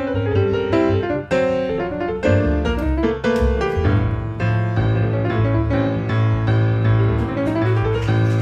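Jazz piano solo on a grand piano, quick runs of struck notes, with upright bass playing low notes underneath.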